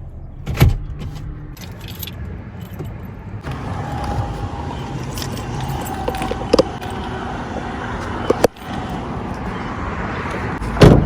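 Sounds around a parked Toyota Sienna minivan: a low hum that stops about a second and a half in, then keys jangling and handling noises with a few small clicks, and a loud thump near the end.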